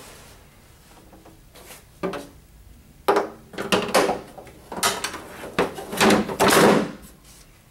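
Plastic motor cover of a Star Trac S-Series treadmill being lowered and fitted over the motor compartment: a single knock about two seconds in, then a run of clatters and scrapes of plastic against the frame, the longest and loudest near the end.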